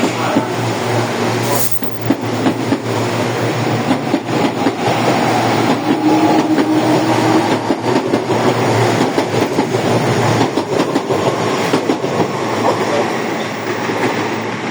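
Série C electric multiple unit departing, its traction motors growling steadily over the rumble of the train, with some wheel clatter on the rails.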